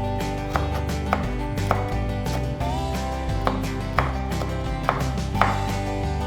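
A kitchen knife chopping on a cutting board, about seven separate sharp knocks at an uneven pace, over background music.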